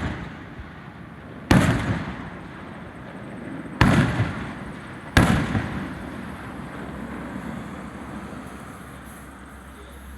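Aerial firework shells bursting: three loud booms, about a second and a half in, just before four seconds and just after five seconds, each followed by a rumbling echo that slowly dies away.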